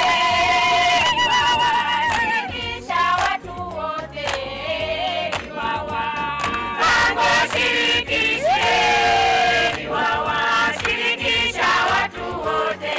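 A mixed group of men and women singing a song together in chorus, with some hand-clapping.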